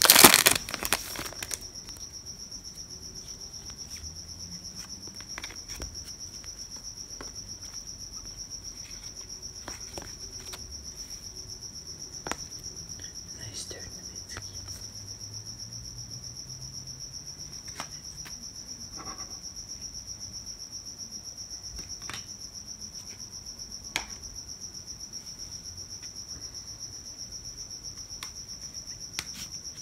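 A cricket chirping steadily, a rapid, even pulsing at one high pitch that keeps on throughout. A foil card pack crinkles loudly in the first second or so, and a few soft clicks of cards being handled come through later.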